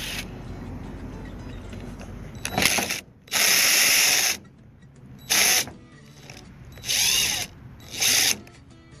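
Power driver with a T25 Torx bit running in five short bursts, backing out the bolts on a string trimmer's housing; some bursts whine up and down in pitch.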